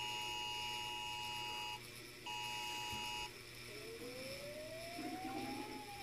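iPhone emergency alert: the shrill two-tone attention signal sounding as a long beep of about two seconds, then after a short gap a one-second beep. A little past halfway, a warning siren starts, wailing slowly up in pitch and beginning to fall near the end.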